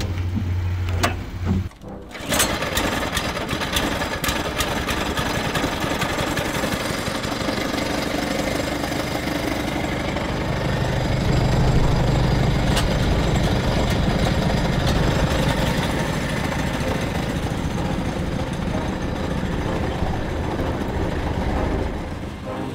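The homemade tank's small engine starting about two seconds in and running with a rapid, rough clatter, growing louder about halfway through as the tank gets moving.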